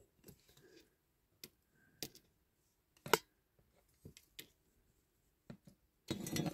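Scattered light clicks and taps of diecast metal toy parts being handled and pulled apart by hand, a few strokes a second apart, with a busier stretch of handling noise near the end.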